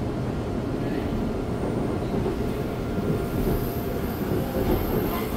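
Seoul Metro Line 2 electric subway train running at speed, heard from inside the passenger car as a steady rumble of wheels on rail. A faint high-pitched wheel squeal comes in about three seconds in.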